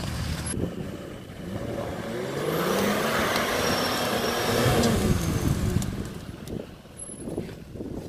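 Off-road SUV's engine revving up and back down, the pitch rising then falling, with a loud rushing noise at the peak between about two and five seconds in.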